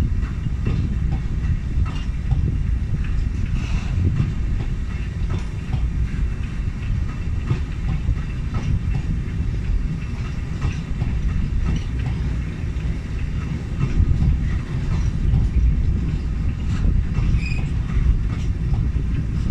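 Freight train of tank wagons rolling past: a steady low rumble of steel wheels on rail, with irregular clicks over the rail joints and a couple of brief high wheel squeaks.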